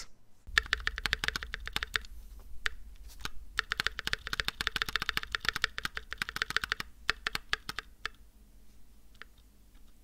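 Typing on a KBD67 MKII mechanical keyboard fitted with NovelKeys Blueberry tactile switches lubed with Krytox 3203: a quick, dense run of key clacks that thins to a few scattered presses near the end.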